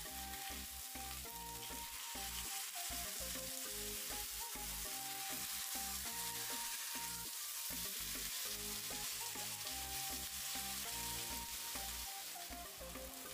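Beef sirloin steaks sizzling in olive oil in a frying pan, a steady frying hiss, just after being turned over. Background music plays underneath.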